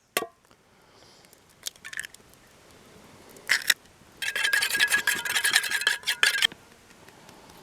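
A few light clicks and taps, then about two seconds of dense rasping grinding, as of a spice grinder being twisted to season eggs in a pan.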